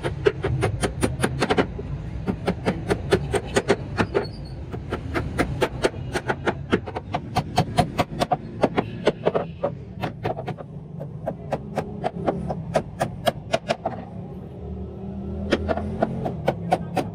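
Hammer striking a chisel into wood, in rapid runs of sharp taps a few per second with short pauses, over a steady low hum.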